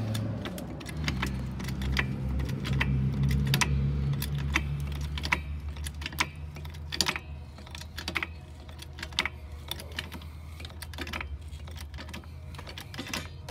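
A car being raised on a hydraulic floor jack: a run of irregular sharp clicks and pops, the popping coming from the Dodge Charger's loose side skirt flexing as the body lifts. A low hum sits underneath for about the first half.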